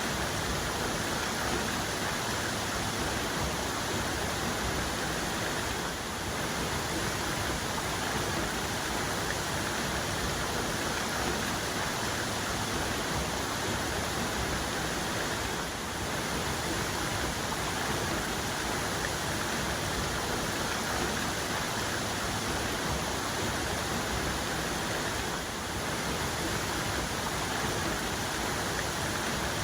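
Waterfall's main cascade: a steady, even rush of falling water, dipping slightly for a moment three times.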